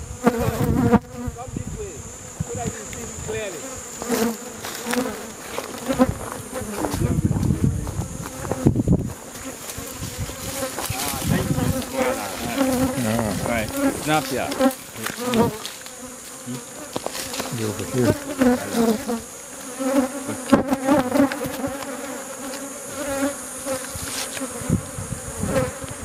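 Honey bees from a disturbed basket hive buzzing thickly around the microphone, with single bees passing close so the pitch wavers up and down. Occasional knocks and low rumble from the camera being handled.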